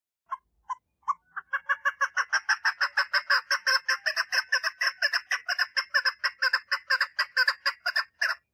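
Female chukar partridge calling for a mate: a few separate clucking notes, then a long, fast run of clucks, about six a second, that stops abruptly near the end.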